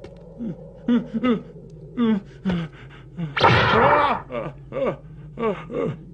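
Dubbed cartoon character's voice: a string of short, wordless gasps and startled grunts, with a louder strained cry about three and a half seconds in.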